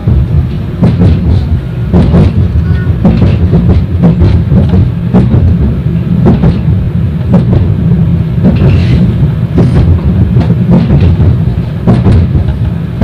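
71-931 Vityaz tram running between stops, heard from inside the passenger cabin: a steady low rumble from the running gear, with frequent irregular knocks and rattles from the wheels on the rails and the car body.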